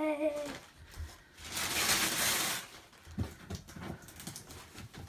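Christmas wrapping paper rustling and crinkling for about a second, followed by lighter rustles and small knocks as wrapped presents are handled.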